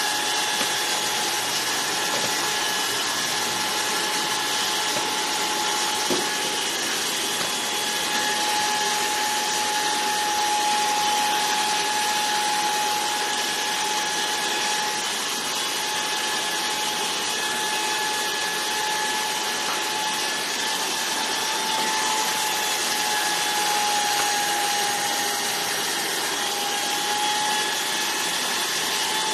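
Electric hair clippers running steadily with a constant buzz.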